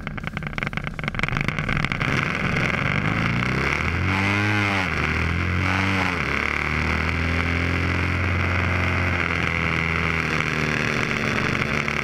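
Harley-Davidson Softail's 147 cubic-inch stroker V-twin, breathing through a Burns stainless Lowrider X exhaust, pulling hard in a timed full-throttle run to 90 mph. The revs climb and drop twice near the middle as it shifts, then hold at a steady pitch, with wind rush over it.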